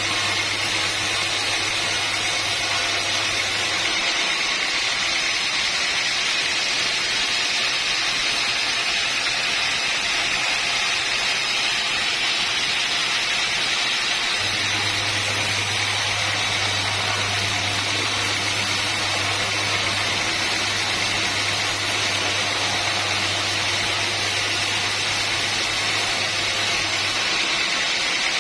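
Sawmill machinery running steadily with a constant loud, hissing whir. A low hum drops out about four seconds in, returns about halfway through and stops again near the end.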